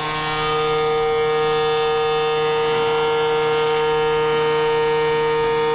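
TIG welding arc buzzing with a steady, even hum and hiss while a small metal tank is welded.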